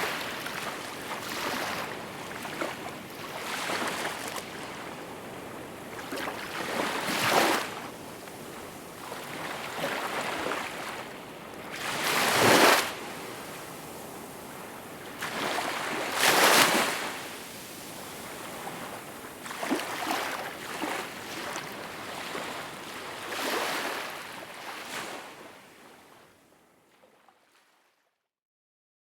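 Small waves washing in and breaking gently on a shore, a hissing surge every few seconds with a few bigger swells. The sound fades out to silence near the end.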